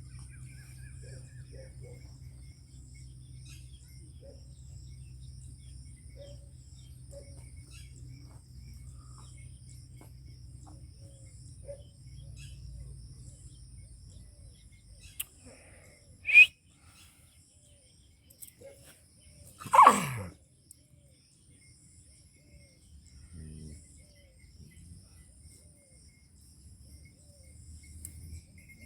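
Outdoor ambience of steadily repeating high insect chirping with scattered small bird calls. Two loud brief animal cries cut through about two-thirds of the way in: a sharp short one, then about three and a half seconds later a longer one that falls steeply in pitch.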